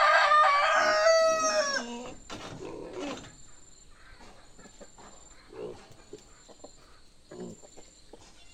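A rooster crowing once, a loud call of about two seconds that drops in pitch at the end, followed by scattered quieter clucks from chickens.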